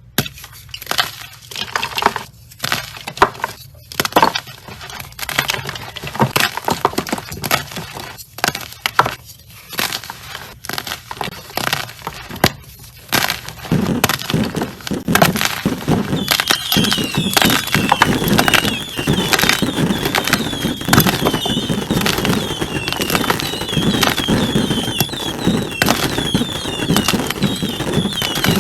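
Gym chalk slime being squeezed and crushed: crunchy cracking and crumbling. Separate sharp snaps in the first half give way to dense, continuous crackling about halfway through, with squeaky chirps over it.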